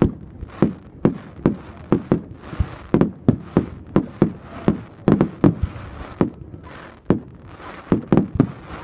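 Fireworks going off in quick succession: sharp bangs, two or three a second at uneven spacing, with a hiss between them.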